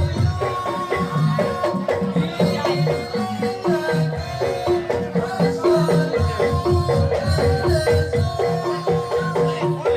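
Jaranan music played live: a gamelan-style ensemble with pitched, mallet-struck metal percussion repeating a short melodic figure over steady drumming.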